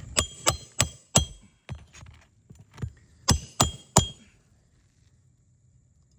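Hammer driving roofing nails into a 3-tab composition shingle: a quick run of four strikes, two lighter taps, then three more strikes, each with a short metallic ring. The strikes stop about four seconds in.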